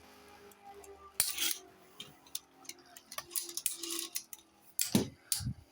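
Spinning 3D-printed Beyblade tops clashing in a stadium: a few sharp plastic clacks at irregular intervals, the loudest about a second in and near the end, over a faint steady hum.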